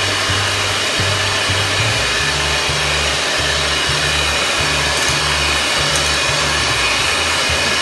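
Handheld electric mixer running steadily, its beaters whirring through a wet batter in a glass bowl as flour is worked in.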